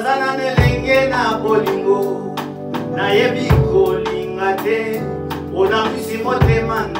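A man sings a Lingala gospel song into a handheld microphone over instrumental accompaniment, with a deep bass note about every three seconds and light percussion.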